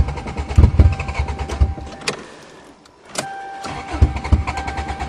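A cold Toyota GTS engine with no exhaust being cranked by its starter without catching. There is a rapid even chugging with the starter's steady whine over it, a brief stop about two seconds in, then a second cranking attempt. The owner says cars with no back pressure and no exhaust are always hard to start in the cold.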